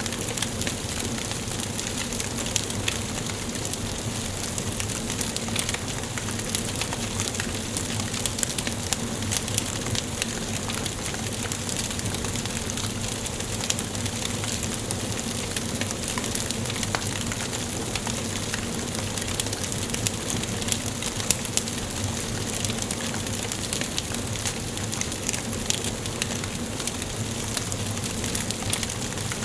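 Wood fire burning in a fireplace: a steady hiss with frequent sharp crackles and pops at irregular intervals.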